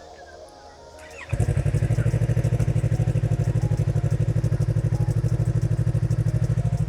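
Yamaha R3's parallel-twin engine started with the starter, catching a little over a second in, then idling steadily with a rapid, even pulse.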